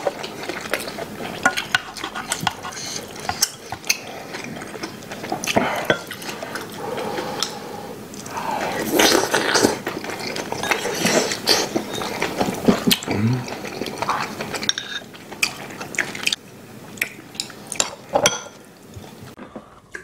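Chopsticks and spoons clicking and clinking against ceramic bowls and plates during a meal, many small irregular taps, with wet sounds of stew being spooned from the bowl.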